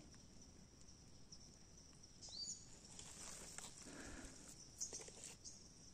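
Quiet tropical forest ambience: a faint, steady high-pitched insect drone, with a short rising bird chirp about two seconds in and a few faint clicks.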